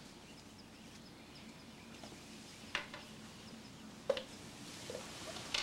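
Quiet room tone with a faint hiss, broken by a few soft, brief sounds about halfway and again about three quarters in.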